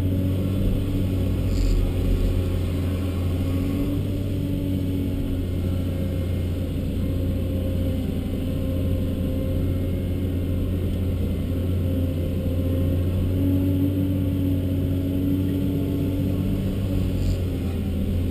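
Cat 324D long-reach excavator's C7 six-cylinder diesel running steadily under hydraulic load, heard from inside the cab. A constant low drone with a pump tone above it that swells and fades a few times as the boom and stick are worked.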